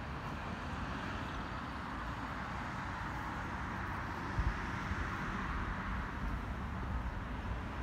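Steady outdoor background noise: a low, uneven rumble under a hiss, with a short thump about four and a half seconds in.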